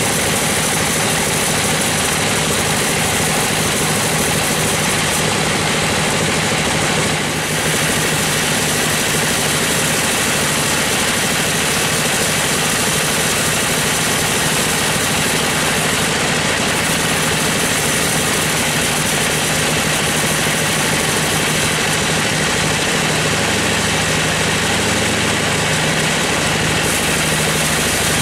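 Sawmill bandsaw running and ripping lengthwise through a gmelina (white teak) log as the carriage feeds it, a loud, steady saw noise over a machine drone, with one brief dip about seven seconds in.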